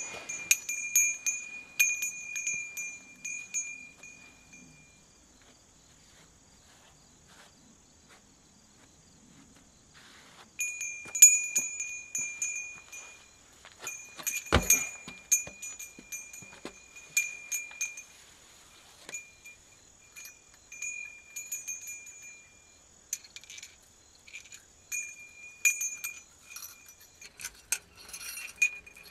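Irregular light metallic clinks and ticks over a high, chime-like ringing tone, in two stretches split by a quiet gap of several seconds, with one heavier knock about halfway through.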